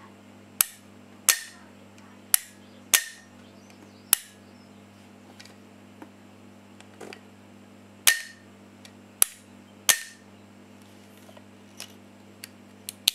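Steel hammer in the trigger group of a VFC HK417 gas-blowback airsoft rifle's open lower receiver, cocked by hand and released so it snaps forward. It gives about eight sharp metallic clicks with a brief ring, five in the first four seconds and three more about eight to ten seconds in, then a few lighter ticks near the end, over a faint steady hum.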